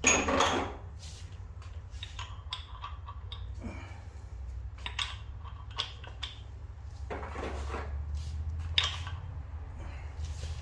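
Metal strut parts and tools clanking and clinking as a coil-spring strut assembly is taken apart after the spring compressor is loosened, a loud clank at the start and several more later, over a steady low hum.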